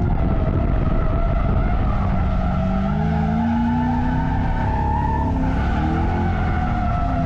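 A drift car's engine held at high revs while its tyres squeal steadily through a slide. The engine pitch wavers up and down.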